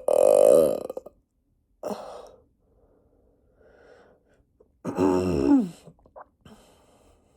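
A person burping: a long burp with a wavering pitch that ends about a second in, a short one near two seconds, and another burp with a falling pitch about five seconds in.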